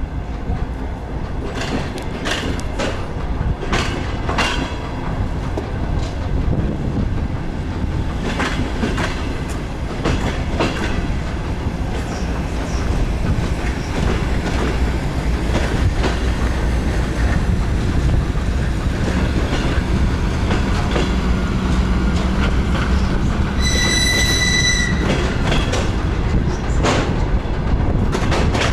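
Wheels of a DR1A diesel multiple unit clacking over rail joints, heard on board, over a steady low running rumble. A brief high-pitched wheel squeal comes a little over twenty seconds in.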